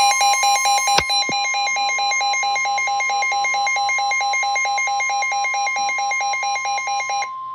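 Weather alert radio sounding its warning alarm for a severe thunderstorm warning: a loud electronic tone rapidly alternating between two pitches over a steady high tone. The alternating alarm stops shortly before the end and the steady tone runs on briefly. There are two short knocks about a second in.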